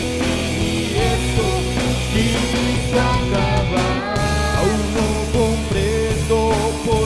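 Rock band playing a song, a roughly recorded demo with drums, with a melody line that wavers in pitch over it.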